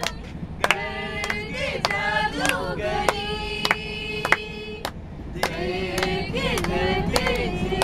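A group of young men and women singing together, mixed voices holding long notes, with hand claps at irregular moments.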